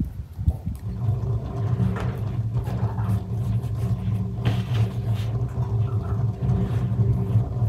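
Steady low hum of an engine running nearby, setting in about a second in and holding an even pitch.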